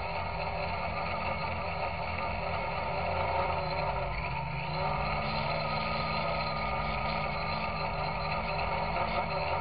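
Electrohub Spider X quadcopter's brushless motors and propellers running in flight, a steady multi-pitched whine that shifts slightly with throttle over a low rumble. The motors are noisy, which the owner takes for bad bearings out of the box.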